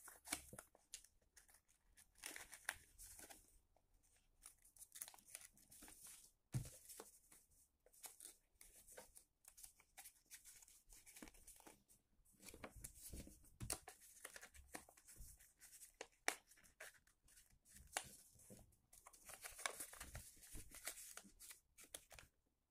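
Faint, irregular rustling and crinkling of a sheet of A4 paper being folded, creased and tucked by hand, with a soft knock on the table about six and a half seconds in.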